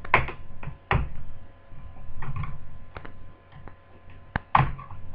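Plastic laptop screen bezel being pried off by hand, its retaining clips popping loose in a string of sharp, irregular clicks and snaps.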